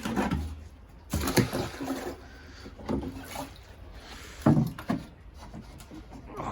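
Water pouring and sloshing as plants are fed, with several short clunks from handling the container, the loudest about a second in and about four and a half seconds in.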